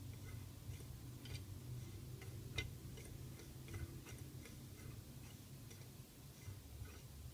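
Light, irregular clicks and ticks from a small hot-air Stirling engine kit's flywheel and wire crank linkage being turned by hand, with one sharper click about two and a half seconds in.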